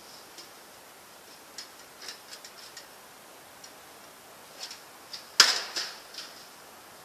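Scattered light clicks and taps, with one sharp, louder knock about five and a half seconds in that rings off briefly.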